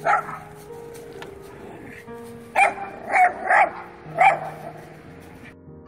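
Dog barking: one bark right at the start, then four sharp barks in quick succession about halfway through.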